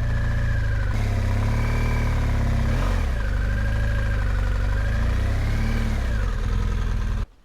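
BMW GS motorcycle engine running close by, its revs rising and falling gently several times as the bike is worked across slippery wet ground, then stopping abruptly near the end.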